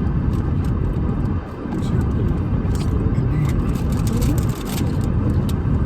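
Steady low rumble of a car, heard from inside a vehicle parked in a busy lot, with a couple of brief dips, scattered light rustles and faint voices.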